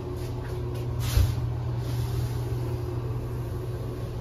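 A steady low mechanical hum with a faint higher tone above it, and a single knock about a second in.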